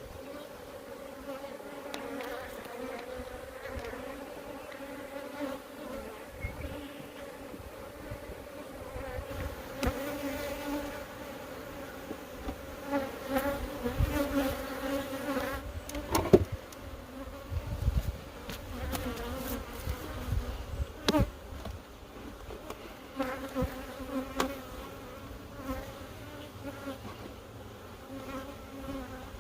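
Honey bees buzzing around an open hive, a steady hum, with a few sharp knocks about halfway through.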